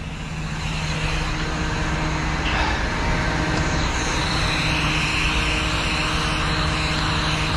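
A DAF recovery truck's diesel engine idling steadily, with a hiss that swells from about three seconds in.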